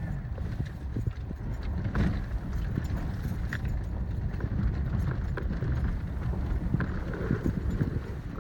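A vehicle driving down a rough gravel track: tyres crunching, with stones clicking and popping under them over a steady low rumble of engine and road noise.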